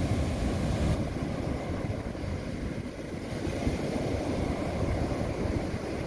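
Waves breaking and washing up a sandy beach, mixed with wind buffeting the microphone as an uneven low rumble.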